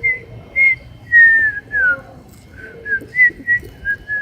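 A person whistling a tune: a string of short clear notes, with a longer falling note a little after a second in, then quicker, lower notes.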